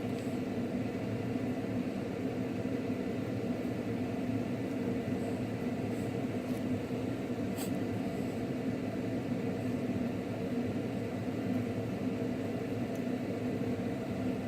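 Steady low hum of room background noise, with a faint click about seven and a half seconds in.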